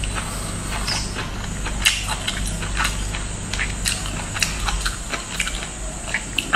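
Lobster shell and meat being pulled apart by hand and chewed close to the microphone: irregular sharp clicks and crackles over a steady low hum.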